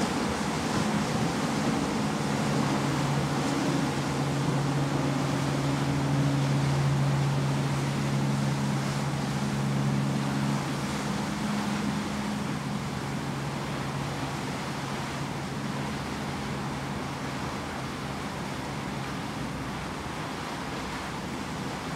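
Wind and water rushing steadily past a coastal passenger ship underway. A low engine drone is strongest in the first half and fades after about ten seconds.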